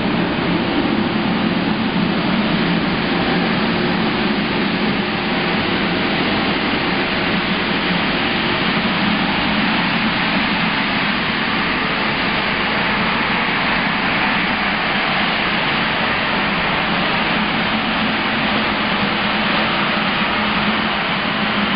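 Transparent PVC recycling granulator line running steadily: the crusher's drive and the blower that carries the flakes up to the cyclone make a loud, even machine noise with a low hum underneath.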